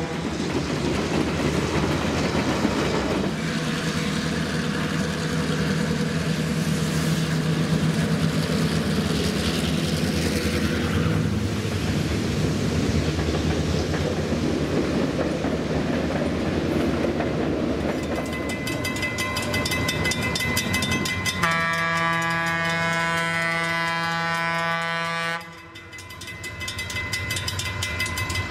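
Vintage EMD diesel locomotives (F7 and GP9 units) hauling a passenger train, engines and wheels making a steady rumble while the horn sounds. One long horn blast cuts off abruptly about three-quarters of the way in, and a rapid rhythmic clicking of wheels on the rails comes in during the second half.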